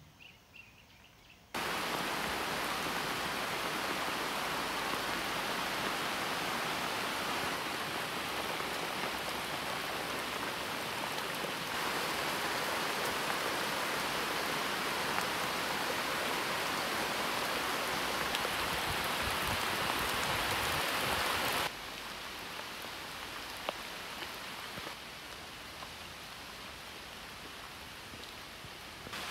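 Steady rain, a dense even hiss, starting abruptly about a second and a half in and dropping to a lighter hiss about two-thirds of the way through.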